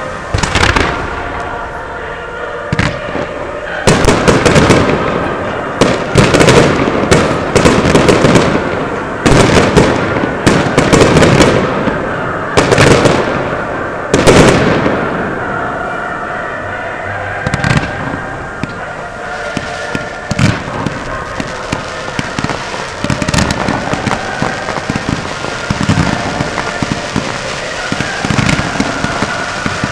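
Fireworks display: loud bangs of aerial shells bursting in quick succession, heaviest in the first half, then many smaller sharp pops in a rapid run through the second half.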